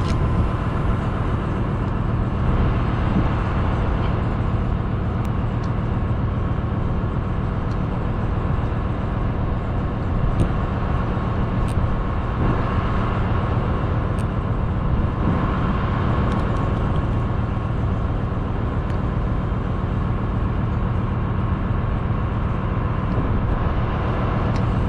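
Steady low drone of a ship's engine and machinery, with sea and wind noise over it and a few faint clicks.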